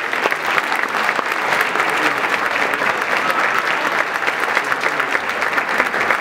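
Audience applauding: steady, dense clapping that keeps up at an even level.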